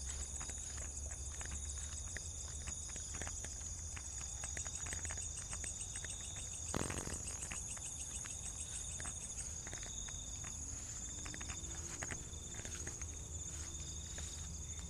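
A chorus of night insects such as crickets trilling steadily at a high pitch, with another insect's lower pulsing calls starting and stopping through the second half. Scattered small clicks and crunches run through it, and a brief louder noise comes about seven seconds in.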